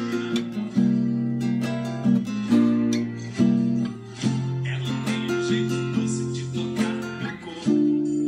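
Acoustic guitar with a capo on the first fret, strummed in a steady rhythm, with the chords changing every second or two.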